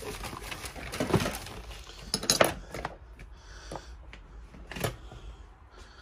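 Rummaging among parts, rags and tools on a workbench: rustling broken by clinks and knocks of small hard objects, the loudest about a second in and around two and a half seconds in, with another near the end.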